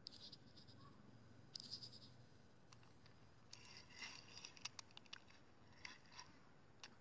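Near silence, with faint scratching and short clicks from the fishing rod and reel being handled as a fish is reeled in; the clicks come thickest between about three and a half and five seconds in.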